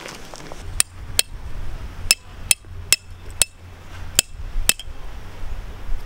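Peg hammer striking a metal tent peg into gravelly ground: eight sharp, clinking metal strikes at an uneven pace, about two a second with short pauses, over a low rumble.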